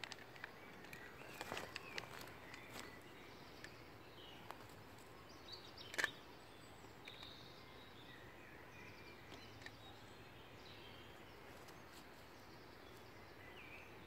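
Faint birdsong: scattered short chirps and calls over a steady low hiss. A few light clicks come in the first seconds, and one sharp click about six seconds in is the loudest sound.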